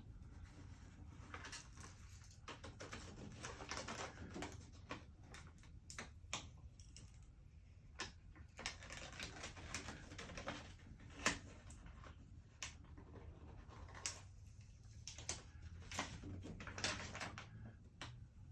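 Transfer tape being peeled off a freshly applied vinyl decal: faint, irregular crackling and rustling with a few sharper clicks.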